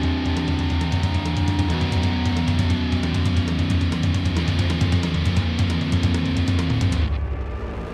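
Rock background music with guitar over a steady beat; the high end drops out about seven seconds in.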